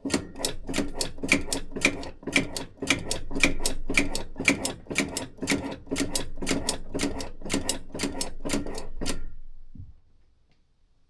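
Starter cranking the 1967 Mercury Monterey's big-block V8 without it catching: a steady, rhythmic chug about four times a second that stops about nine seconds in. The owner suspects a bad spot on the starter or flywheel teeth.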